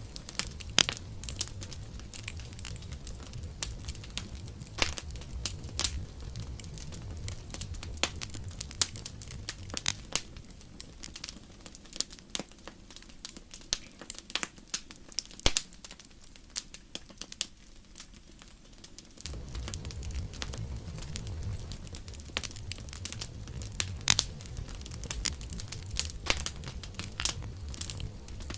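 Wood fire crackling and popping, with sharp irregular snaps over a low rumble of flame. The rumble drops away for several seconds midway, then comes back abruptly.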